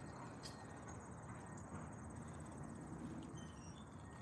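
Faint outdoor ambience: a steady, high-pitched, finely pulsing insect trill over a low rumbling noise.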